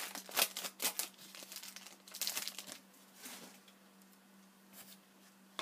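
Crinkling and tearing of a hockey card pack's wrapper as it is opened by hand, busiest in the first three seconds and then tapering off. A faint steady hum runs underneath, and there is a single sharp click near the end.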